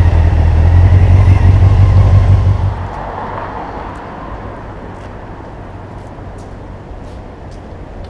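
Honda CBF motorcycle engine running at low speed, a loud low rumble that drops away sharply about two and a half seconds in, leaving quieter city traffic.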